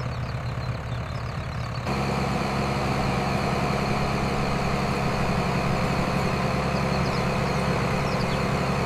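Tractor engine running steadily at idle, a low even hum. About two seconds in, the sound shifts to a slightly louder, steadier run.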